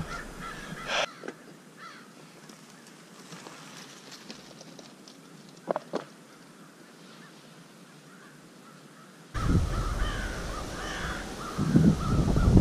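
Quiet outdoor ambience with birds calling. Two short clicks come about six seconds in. A louder low rushing noise cuts in about nine seconds in and swells near the end.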